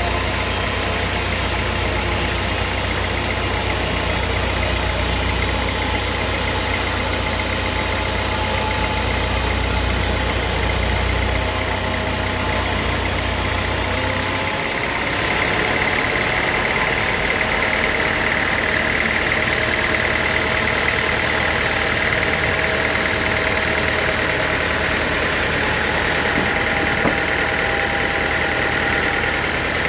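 Sawmill machinery running steadily. About halfway through, the deep low hum drops away and a steady higher-pitched whine comes in.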